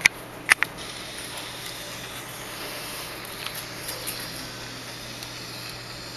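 A few sharp clicks in the first second, then steady hiss.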